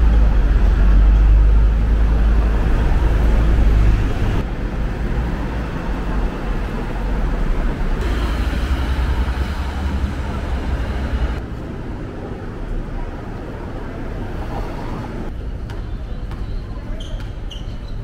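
Busy city road traffic: cars and double-decker buses passing, with a heavy low engine rumble for the first four seconds and again a little later. The sound changes abruptly every few seconds as short clips cut, ending in quieter ambience with a few short high squeaks.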